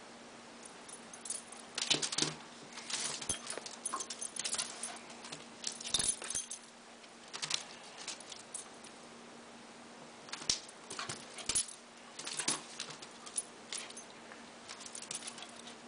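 Pembroke Welsh corgi puppy scrambling after a feather wand toy: irregular clusters of short jingles and scuffles from its collar tags and paws on the carpet.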